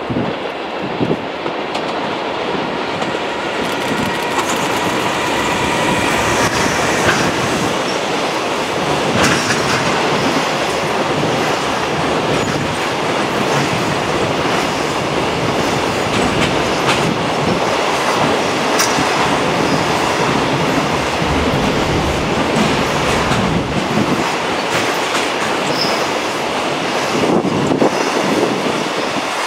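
JR Freight EF210 electric locomotive hauling a long container freight train past, the wagons' wheels clattering over rail joints and pointwork. The noise builds over the first few seconds, then holds steady as wagon after wagon rolls by.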